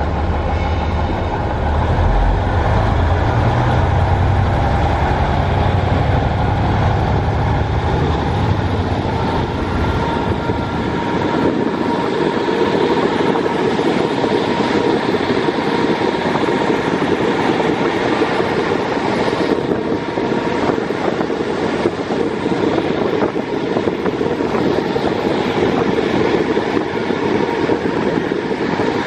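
JR East KiHa 48 diesel railcar running, heard from inside through an open window. For about the first ten seconds the diesel engine's deep drone is strong, with a whine that slowly rises in pitch. After that the drone drops away and a steady rush of wind and wheel-on-rail noise takes over.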